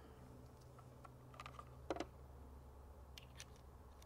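Near silence with a few faint clicks and taps from hands handling a scoped bolt-action rifle, and one slightly louder short knock about halfway.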